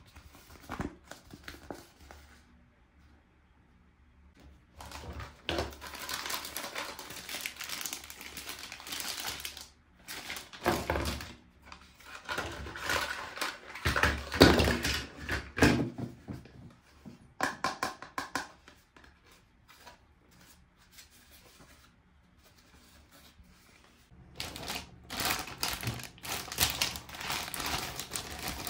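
Toy packaging being handled and unwrapped: crinkling, rustling and tearing in several bursts, with quieter gaps broken by small clicks and knocks.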